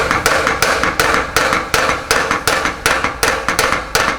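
A hammer strikes the outer wall of a motorcycle silencer's double-walled bend pipe in steady metal-on-metal blows, about three a second. The outer pipe is being beaten down onto the cracked inner pipe so the two touch, to stop the rattle of the inner pipe knocking inside.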